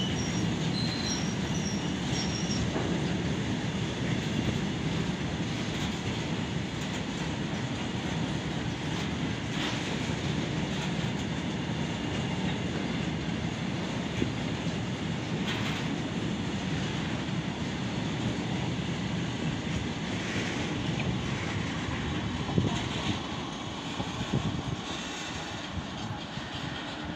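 BTPN petroleum tank wagons of a long goods train rolling past on the rails: a steady rumble of wheels with occasional sharp knocks, and a high wheel squeal in the first few seconds. The noise drops near the end as the brake van passes and the train draws away.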